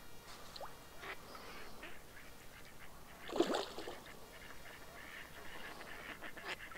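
Waterfowl calling on the lake, with a louder call about three and a half seconds in and fainter calls around it.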